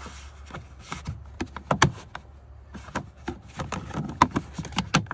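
Hard plastic speaker grille and trim being handled and pressed into place, giving a scatter of irregular clicks and knocks, the sharpest ones a little under two seconds in and again near the end, over a low steady hum.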